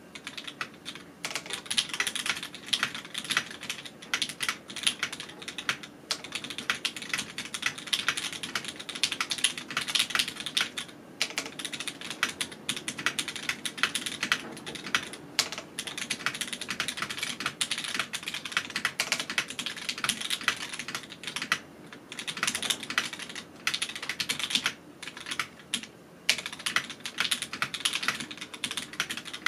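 Typing on a rebuilt Duck mechanical keyboard with vintage Cherry switches on an aluminium plate, its stabilizers left untuned: a steady run of key clacks with a few short pauses.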